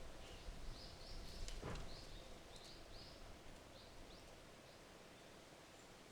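A small bird giving a quick series of short, high chirps over the first few seconds, over faint outdoor background noise. One soft thump comes about a second and a half in.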